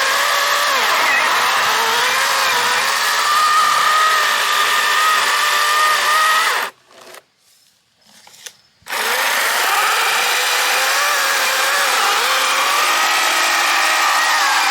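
Battery-powered chainsaw whining as it cuts wood, its pitch dipping under load. The motor stops about seven seconds in, then starts again after about two seconds.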